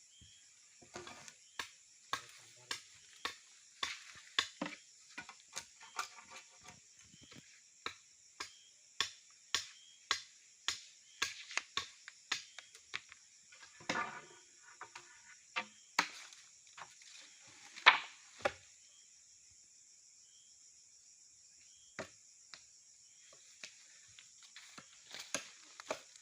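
Sharp, irregular knocks and clacks, about one to two a second, that stop after about eighteen seconds and come back sparsely near the end, with a steady high insect buzz throughout.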